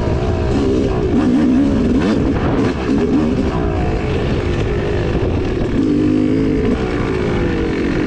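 2016 Yamaha YZ250X single-cylinder two-stroke dirt bike engine running hard under changing throttle, its pitch rising and falling as it is ridden. A few short knocks sound about two to three seconds in.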